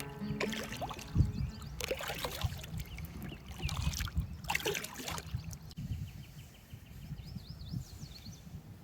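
Kayak paddle strokes: the blade dipping and splashing irregularly in the river water, with water trickling off it between strokes.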